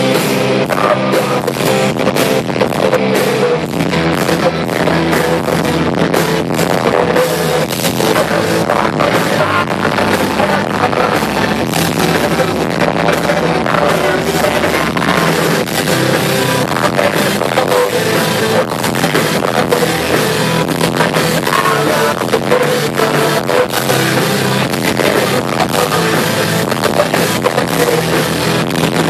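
Rock band playing live and loud, with electric guitars and a drum kit.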